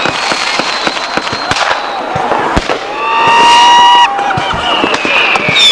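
New Year's Eve fireworks going off all around: a dense scatter of bangs and crackles, with a whistling rocket's steady whistle about halfway in as the loudest sound, and another whistle falling in pitch near the end.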